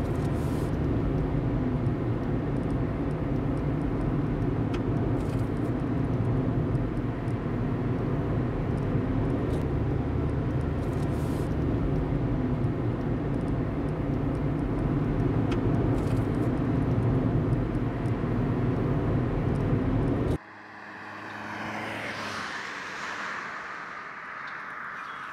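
Steady low rumble of a road vehicle, cutting off abruptly about twenty seconds in. A quieter whoosh then swells and fades away.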